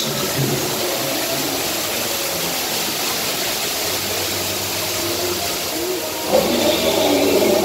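Steady rushing and hissing of water from the ride's artificial waterfalls and channel, with a low steady hum joining about four seconds in. People's voices break in near the end.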